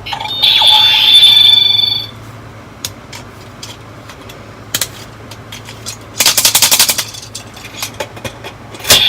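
Bandai DX toy's electronic sound effect from its small speaker, a bright held tone for about a second and a half, followed by scattered plastic clicks from handling the toy and a quick rattling run of pulses about two-thirds of the way through.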